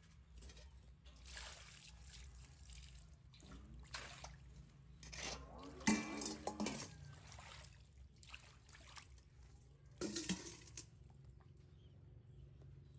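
Water splashing and trickling from a metal pot in several short bursts, loudest about six seconds in.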